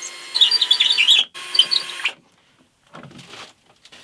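Metabo cordless drill-driver backing a screw out of a wooden dust cowl: the motor whines with a high, wavering squeal over it, in two runs with a short break about a second in, and stops about two seconds in. A little after, brief low knocking and rubbing as the cowl is lifted off.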